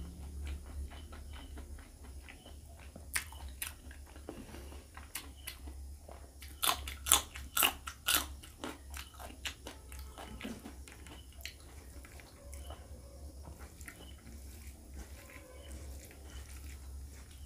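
Close-miked eating: wet chewing and mouth clicks, with a run of loud crisp crunches a little before halfway as a raw green chilli is bitten into.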